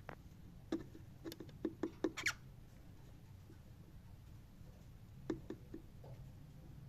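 Cockatiel making scattered soft clicks and taps in two small clusters, with one short rising chirp about two seconds in.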